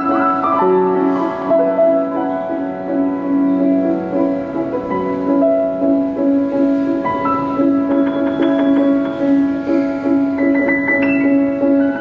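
Solo grand piano playing: a middle-register note struck again and again under ringing chords and higher melody notes.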